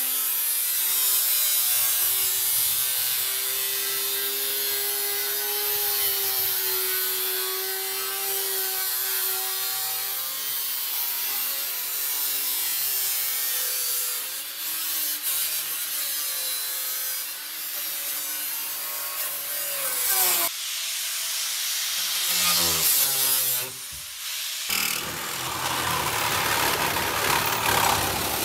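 Angle grinder cutting through the sheet-metal roof pillar of a truck cab: a harsh grinding hiss over the motor's whine, which sags and recovers as the disc loads up. It stops briefly twice in the second half.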